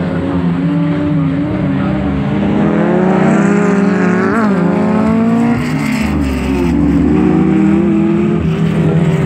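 Small rallycross cars' engines revving hard as they race around the track, pitch rising and falling with throttle and gear changes. One car passes close about four seconds in.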